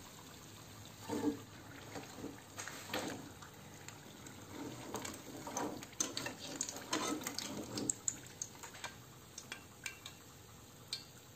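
Metal skimmer and spatula clinking and scraping against a frying pan, with wet, sticky liquid sounds, as fried briouates are lifted from the oil and turned in honey syrup. The sounds come in uneven bursts, busiest in the middle and thinning to a few light clicks near the end.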